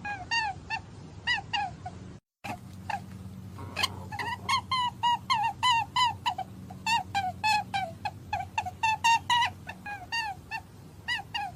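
A rapid string of short, squeaky chirping calls from a small animal, several a second, broken by a brief gap about two seconds in. A steady low hum runs underneath.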